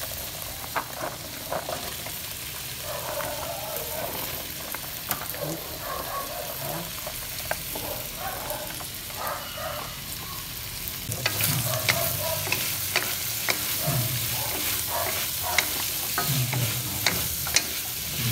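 Chayote strips and chicken sizzling in a hot wok. From about eleven seconds in, the sizzle grows louder and wooden spatulas stir and scrape against the wok with repeated clicks and knocks.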